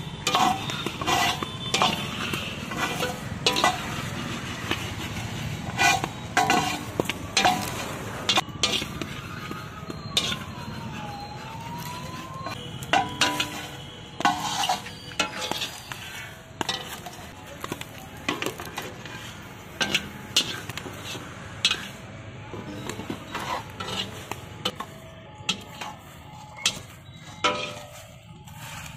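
An iron ladle scraping and knocking against a large iron wok as corn kernels are stirred through hot sand, with irregular sharp pops and clinks that grow sparser toward the end. A siren-like tone falls and rises once about ten seconds in.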